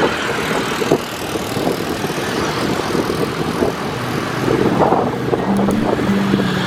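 Vehicle driving along a road: steady engine and road noise with wind on the microphone. Music with held notes fades in near the end.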